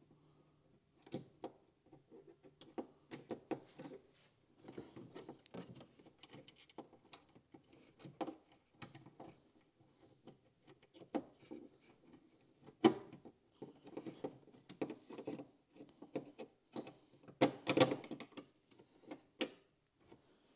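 Irregular clicks, clacks and knocks of a replacement door handle and its clips being worked into a kei truck's door by hand. There is one sharp knock about two-thirds of the way through and a close run of louder knocks a few seconds before the end.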